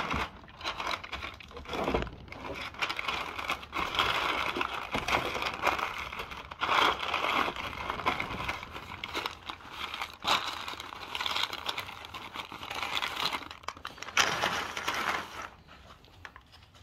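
Butcher paper crinkling and rustling by hand in irregular rustles as meat is wrapped in it for the smoker, dying away near the end.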